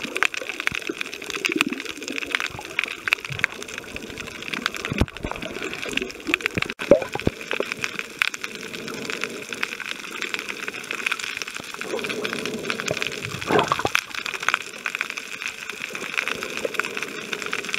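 Underwater sound heard through a snorkeler's camera: water sloshing and bubbling against it, with many scattered clicks and crackles and a few brief muffled voice-like sweeps.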